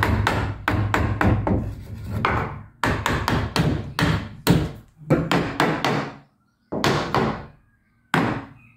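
Steel claw hammer striking the softwood timber of a door lining, in quick runs of blows several a second with short pauses between runs.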